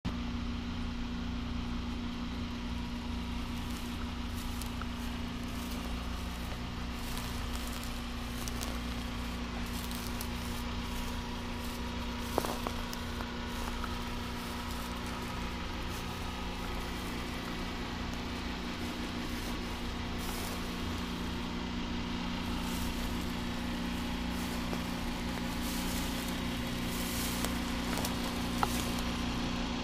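Steady low mechanical hum that holds one pitch throughout, with faint rustling and a few brief clicks, the sharpest about twelve seconds in.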